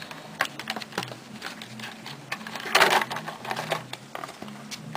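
Clear plastic packaging handled on a wooden table: a run of light clicks and crinkles, with a louder rustle of plastic about three seconds in. A faint low hum runs underneath.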